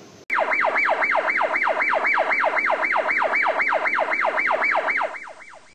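Electronic siren-like sound effect over the end card: a rapid falling whoop repeated about four times a second, starting suddenly just after the cut and fading out near the end.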